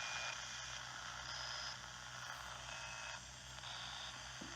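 Spirit-box static: an even radio hiss from a device sweeping through stations, with a few short high beep-like tones at different pitches dropping in and out over a low steady hum.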